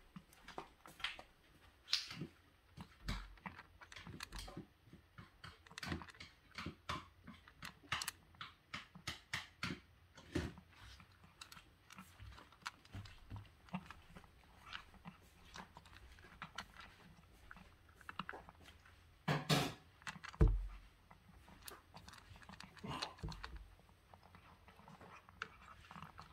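A cat crunching dry kibble from a plastic bowl: a steady run of irregular, crisp bites and chews, with a couple of louder knocks about two-thirds of the way through.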